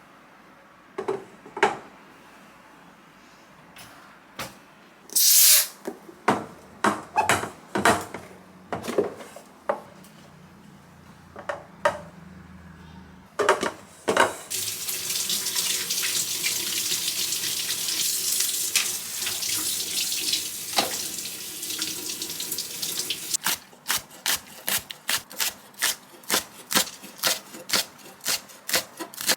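Kitchen work sounds. Scattered knocks and clinks, then a faucet running into a sink for about nine seconds. After the water stops, a quick, even run of taps at about four a second.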